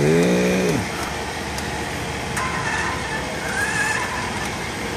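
A man's brief wordless vocal sound, rising then falling in pitch, lasting under a second, followed by a steady outdoor background rumble.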